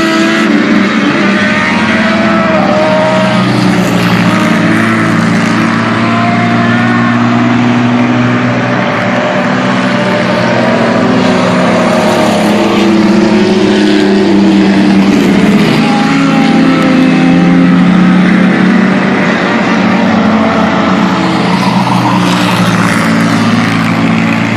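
Several pickup race-truck engines running hard around a dirt oval, a continuous loud din whose pitch rises and falls as the trucks pass and lap.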